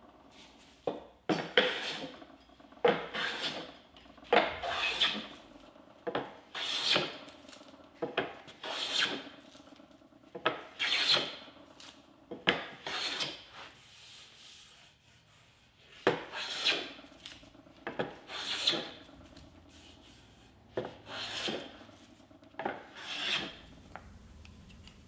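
Hand plane taking repeated strokes along a wooden board, each a shaving rasp about a second long starting with a sharp catch, roughly one every two seconds, with a short pause about midway.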